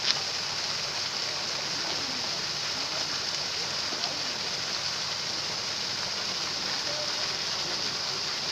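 Steady splashing and churning of pond water as fish thrash in a net being hauled in, with faint distant voices and one sharp knock right at the start.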